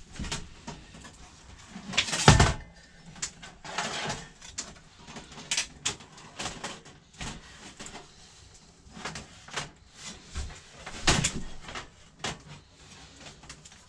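Thin aluminium panels of a folding Coleman stovetop camp oven clicking and clanking as it is assembled and its hinged lid and rack are handled. There are scattered light knocks, with louder clanks about two seconds in and again about eleven seconds in.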